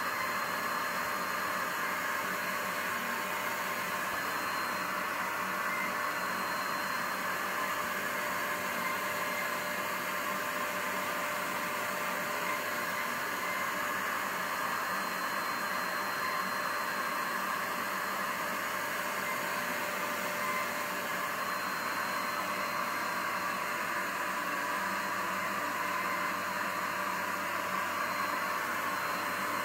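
Steady hiss of compressed air blowing through a small homemade oscillating-cylinder engine model as it runs on air.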